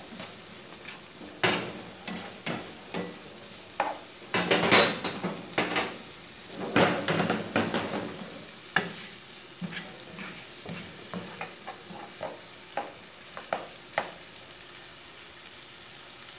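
Diced tomato and onion frying in bacon fat in a non-stick frying pan: a steady soft sizzle under the scrape and tap of a spatula stirring. The stirring is busiest in the middle and thins out near the end.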